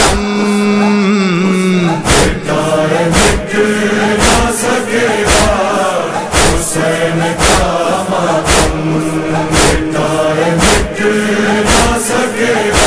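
Urdu noha: male voices chanting the lament in chorus with long held notes. About two seconds in, a steady chest-beating (matam) rhythm joins, about one beat a second.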